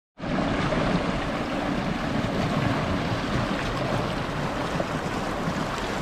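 Inflatable boat underway under motor: a steady rush of water churning in its wake, mixed with wind. It cuts in abruptly right at the start.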